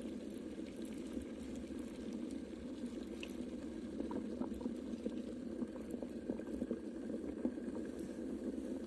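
Pot of water boiling, a steady low bubbling with small scattered pops.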